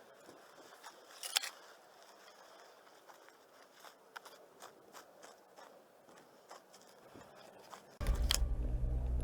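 Faint crackles and snaps of footsteps on dry twigs and forest litter, with a sharper crack about a second and a half in. Music comes in near the end.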